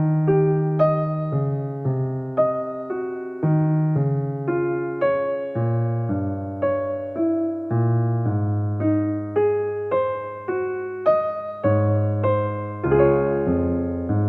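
Background music: a piano-like keyboard playing a slow melody over held bass notes, with about two notes struck each second.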